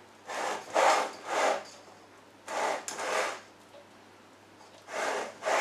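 A spatula scraping over cake batter in a springform pan as the batter is smoothed flat. There are short scraping strokes in three runs with brief pauses between them.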